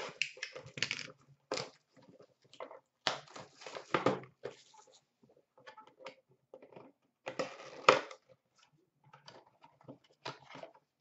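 Hands handling and opening a small cardboard puck box: irregular crinkling, scraping and crackling of the packaging, with a sharper crack about eight seconds in.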